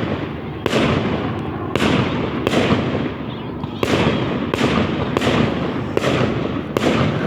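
Fireworks display: aerial shells bursting in quick succession, about eight bangs roughly a second apart, each trailing off, over continuous background noise.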